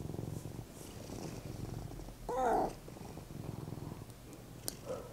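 Large domestic cat purring steadily, with one short rising-and-falling meow about two and a half seconds in.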